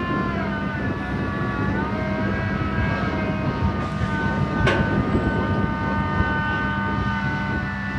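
Liebherr LTM 1500 mobile crane's diesel engine and hydraulic drive running steadily over a low rumble. Their whine steps down in pitch twice near the start and changes again about halfway, where there is a single sharp click.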